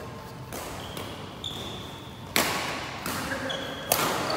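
Badminton rackets striking a shuttlecock during a rally, sharp smacks that ring in the hall; the two loudest hits come about a second and a half apart, near the middle and near the end.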